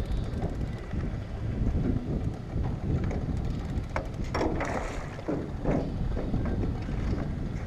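Wind buffeting the microphone in a low, irregular rumble, with a few short bursts of noise about four to six seconds in.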